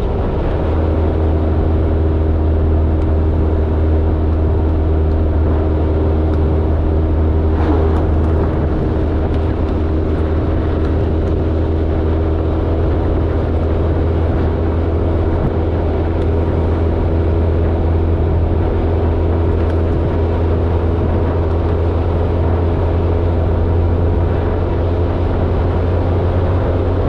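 Vehicle engine running steadily at a constant speed, a loud, even drone that does not change.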